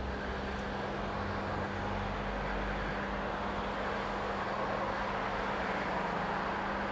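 Steady background noise with a constant low hum.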